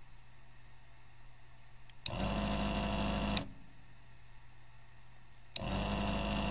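Electric desoldering gun's vacuum pump running twice, each run a little over a second, with a click as it starts and stops, sucking molten solder out of the through-holes of a circuit board.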